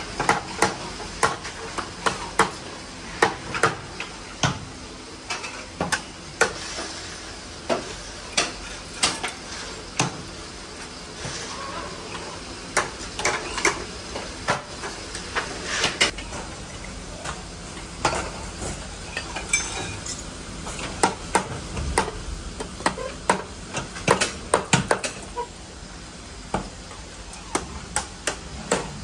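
Irregular metallic clinks and knocks, a few each second, of metal parts being handled and tapped in a workshop, over a steady faint machine hum.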